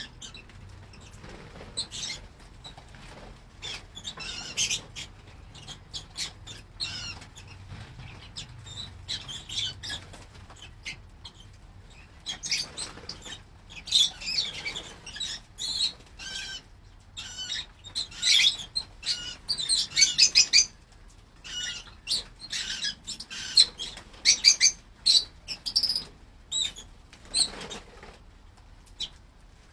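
Lovebirds chirping and squeaking in quick, short high calls, growing busier and louder about halfway through.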